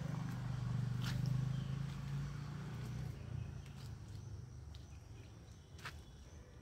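Outdoor ambience: a low rumble that fades away about three seconds in, with two short high chirps, likely birds, and a faint steady high insect-like hum.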